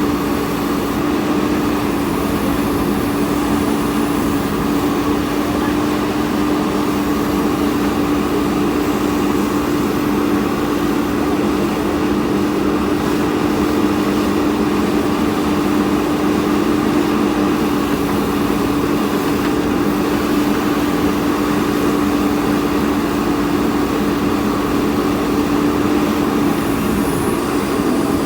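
JCB backhoe loader's diesel engine running at a steady speed, with a steady drone.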